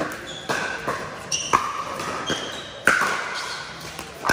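Pickleball paddles striking a hollow plastic pickleball during rallies: a run of about half a dozen sharp, irregularly spaced pops, each with a short ringing tail.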